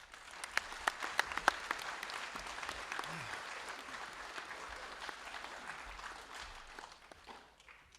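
Audience applauding a guest speaker's introduction, with sharp individual claps standing out in the first couple of seconds; the applause then thins and dies away near the end.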